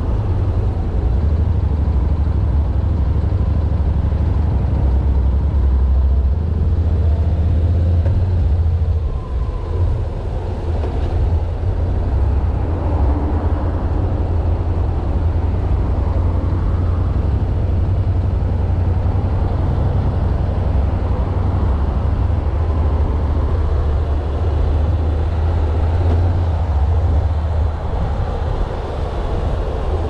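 Motorcycle riding at highway speed: a steady low engine rumble mixed with wind rush and road noise.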